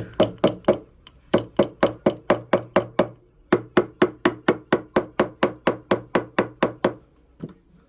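Rubber mallet tapping an 18-karat gold ring on a ring mandrel to round it out: quick taps about four a second, in three runs broken by short pauses, with a few faint taps near the end.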